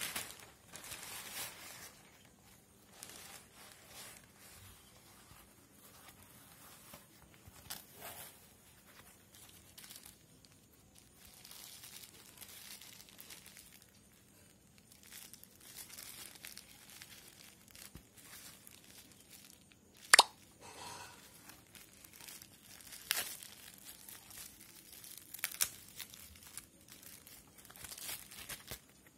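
Hands tearing open a black plastic mailer bag and handling crinkling bubble wrap and foam sheets, in irregular rustles and rips, with several sharp snaps, the loudest about two-thirds of the way through.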